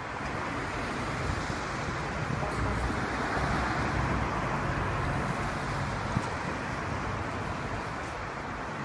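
Road traffic noise: a steady rush of passing vehicles that swells a little three to four seconds in, with one short click about six seconds in.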